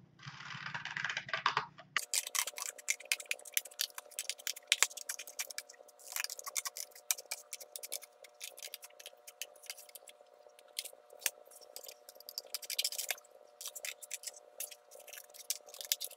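Scissors cutting a paper plate: a brief rustle of handling, then many sharp, irregular snips a few per second, with a faint steady hum beneath.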